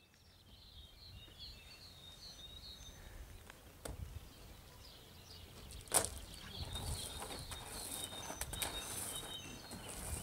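Faint outdoor ambience with small birds chirping. There is a sharp click about six seconds in, followed by light rustling.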